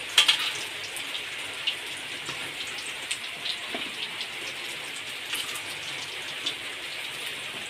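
Hot oil sizzling steadily in a wok as fish fries, with scattered crackles and a sharp clatter just after the start.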